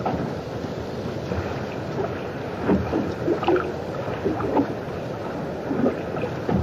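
Steady rush of wind and water on open water, with a few brief, louder splashes or knocks along the way.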